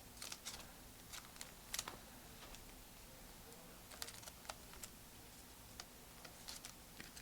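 Faint, irregular light clicks and taps from small objects handled on a desk, a few louder ones about two and four seconds in.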